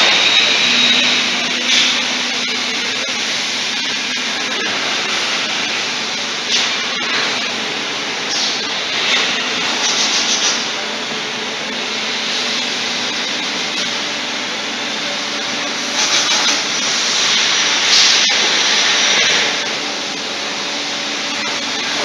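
Three-phase industrial vacuum cleaner running with a steady suction hiss as its floor nozzle picks up chips and spilled liquid, with a few brief louder rushes.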